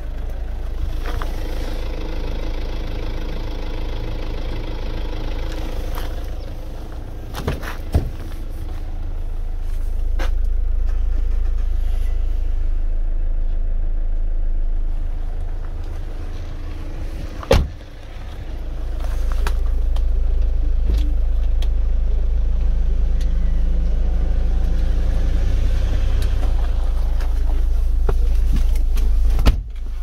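GM Daewoo Winstorm SUV's engine idling, a steady low rumble that swells and eases with wind on the microphone. A few sharp knocks, one about halfway through.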